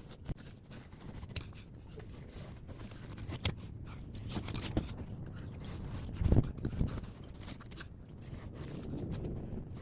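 Hand work stripping the thin aluminium fins off an air-conditioner radiator's copper tubes. Irregular scraping, crunching and clicking of metal fins, with a couple of louder knocks a little past the middle.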